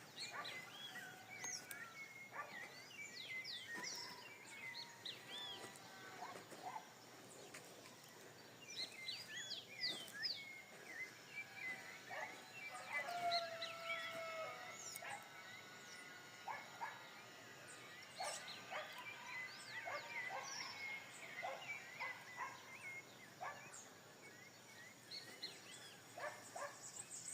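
A sabiá (Brazilian Turdus thrush) singing a long, continuous run of varied whistled phrases, with short chirps and sweeping notes throughout.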